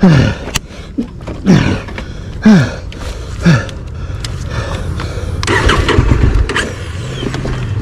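Honda Africa Twin CRF1100's parallel-twin engine being blipped hard off-road, the revs jumping and falling away quickly about once a second. A longer, rougher burst of revs comes about two-thirds of the way through, then a steady low running note.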